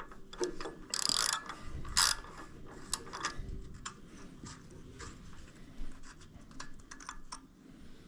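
A ratchet wrench with a 9/16 socket clicking in short runs as it works a nut on a small-engine carburetor, with a few louder rasps in the first two seconds.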